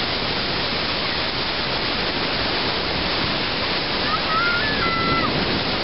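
Iguaçu Falls thundering down close by, a steady, dense rush of falling water, with a voice briefly heard through it about four seconds in.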